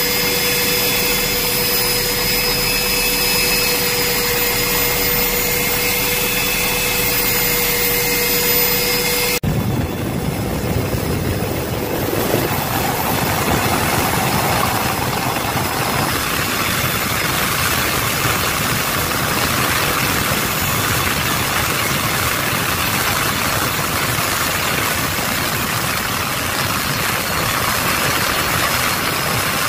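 Steady engine drone of the aircraft carrying the camera, heard on board, with a whine of several steady tones over it. About nine seconds in it changes suddenly to a rougher, even rushing noise without the whine.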